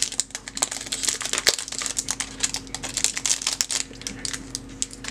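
Clear plastic packaging crinkling and crackling as it is handled, a quick irregular run of sharp crackles.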